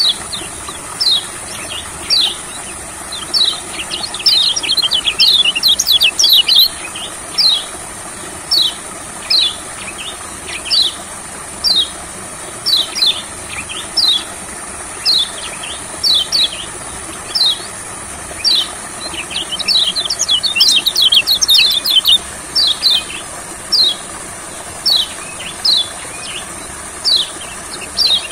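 Kecial kuning white-eye calling with short, sharp, high chirps about once a second. It breaks into quick twittering runs about five seconds in, again around twenty seconds in, and at the end. A steady high insect buzz runs underneath.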